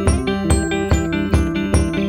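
Background music with a steady beat, a little more than two beats a second, over held melodic notes.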